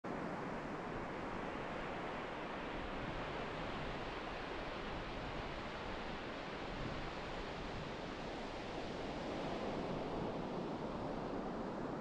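Ocean surf breaking on a sandy beach, a steady wash of waves with no single break standing out.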